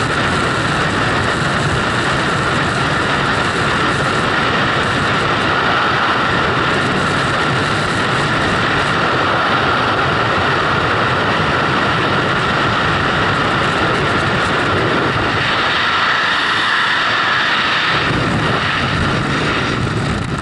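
Loud, steady rush of freefall wind over the skydiving camera's microphone.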